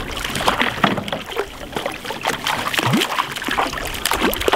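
Small hooked rainbow trout splashing repeatedly at the surface beside the boat while it is played in on a fly rod, with more splashing as the landing net goes into the water near the end.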